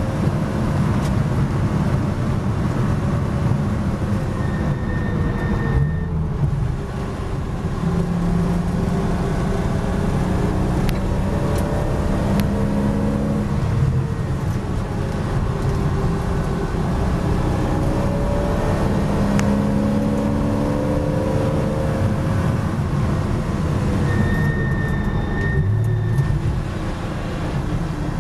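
Porsche Boxster S race car's flat-six engine heard from inside the cockpit at racing speed, its note rising again and again as it pulls through the gears. It briefly falls away twice, about six seconds in and near the end, as the car slows for corners. Road and tyre noise runs underneath.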